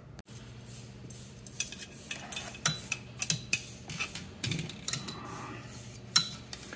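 Metal clicks and clinks of a hand tube bender being fitted onto a brake line and worked by hand: a run of short, sharp taps, with one loud clink about six seconds in.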